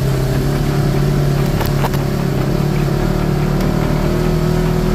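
Side-by-side UTV engine running at a steady speed while driving along a muddy trail, with a couple of brief clicks about two seconds in.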